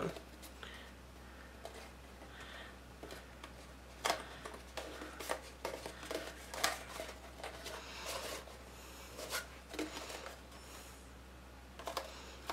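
Cardstock pieces being lined up and pressed together for gluing: faint paper rustles and scattered light taps, a few every second or two.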